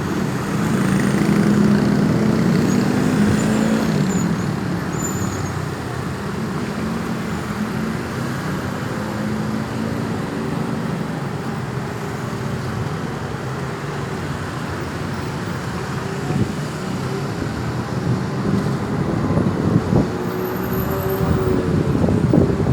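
Road traffic: cars and heavier vehicles passing, with a low engine drone loudest in the first few seconds.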